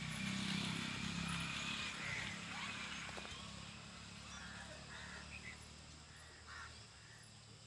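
Pigeons cooing, loudest in the first two seconds and then fading, with a few short higher calls scattered through.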